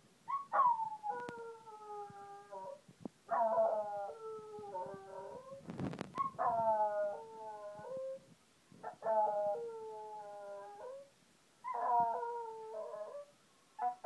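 West Highland white terrier howling: a run of about six drawn-out howls, each sagging slightly in pitch, with short pauses between.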